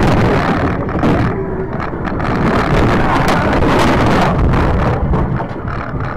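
Car going off the road and ploughing into roadside brush and trees, heard from a dashcam inside the cabin: loud rushing and rumbling noise broken by several knocks and scrapes, dying down near the end.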